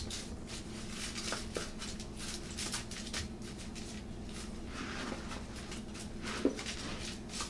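Oiled potato and carrot pieces being spread by a gloved hand across a foil-lined baking pan: quiet, irregular soft clicks and crinkles of the foil.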